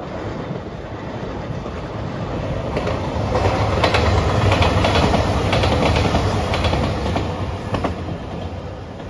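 JR Shikoku 2700 series diesel express train passing at speed: diesel engines running under a rush of wheel noise, with a run of wheel clicks over rail joints. It grows louder to a peak about four to six seconds in, then fades as the train draws away.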